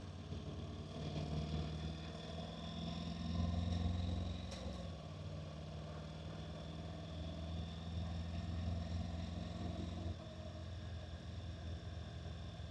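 Honda NC750X's parallel-twin engine running as the motorcycle is ridden, with road and wind noise. The engine note holds steady, dips slightly just after a brief click about halfway through, and changes again near the end.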